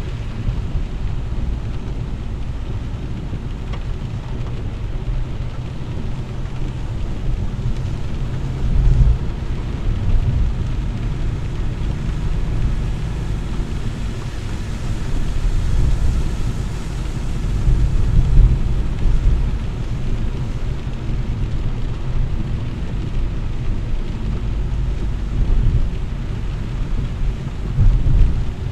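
Car cabin noise while driving in heavy rain: a steady low rumble of tyres on the wet road and the engine, with rain on the car. The rumble swells several times.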